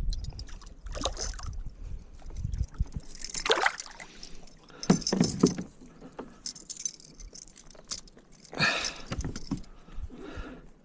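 Irregular clinking, rattling and splashing of fishing gear and water around a kayak, in uneven bursts with a low rumble over the first couple of seconds.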